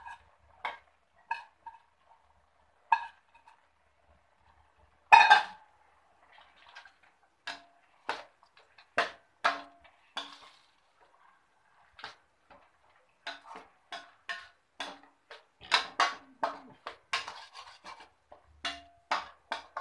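Metal slotted spatula scraping and knocking against a stainless steel kadai while stirring sliced mushrooms into fried masala. Irregular strokes, with one loud knock about five seconds in and quicker, denser stirring in the second half.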